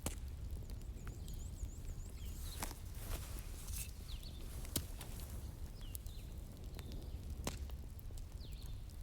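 Wood fire in a fireplace crackling: sharp, irregular pops and snaps over a low, steady rumble, with a few faint high chirps.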